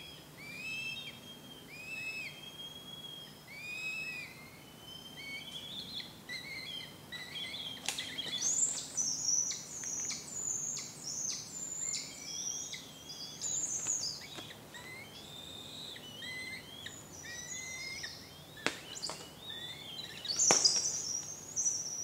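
Two juvenile northern goshawks calling from the nest, begging for food: a run of short, repeated rising-and-falling calls, then higher, faster squealing calls from about eight seconds in and again near the end.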